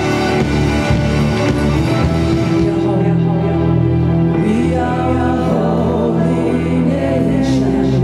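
Live worship band playing with a singer. The drum beat drops away about three seconds in, leaving held chords and bass under the voice.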